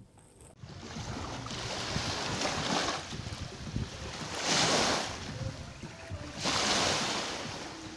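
Water washing in three slow swells, with wind blowing on the microphone.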